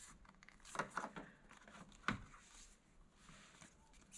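Faint handling noise from a hard-hat earmuff cup and its foam ear cushion being pressed together over stuffed-in headset wires and a speaker: small scattered clicks and rustles, the sharpest about two seconds in.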